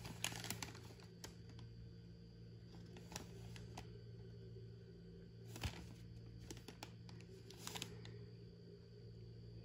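Faint scattered rustling and clicking of things being handled, in clusters near the start, about three seconds in and again between about six and eight seconds, over a steady low hum.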